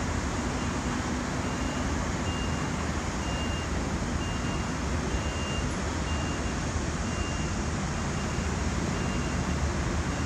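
Steady vehicle noise: an even hiss over a low hum, with a faint high tone that comes and goes in short beeps about once a second.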